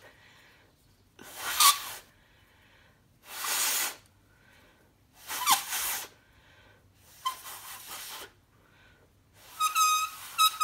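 Five breaths blown in turn through a folded-paper screecher, each a rush of air under a second long. The first four mostly fail to sound, and the last, near the end, sets the paper edge vibrating in a short, stuttering high screech.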